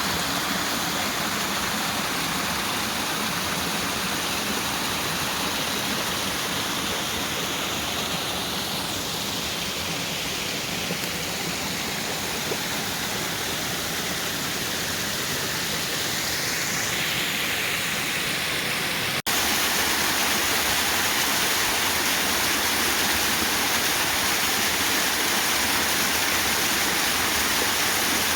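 Waterfall rushing steadily. An abrupt cut about two-thirds of the way through leads into a slightly louder stretch of the same rushing water.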